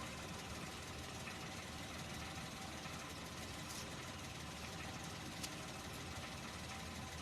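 Car engine idling faintly and steadily.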